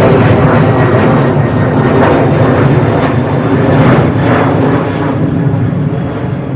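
Added aircraft engine sound effect: a loud, steady rushing drone with a deep rumble underneath and a few faint rising swells in the middle.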